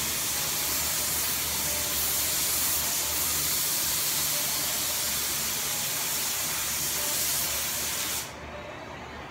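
Gravity-feed paint spray gun hissing steadily as it sprays paint, cutting off abruptly about eight seconds in when the trigger is released.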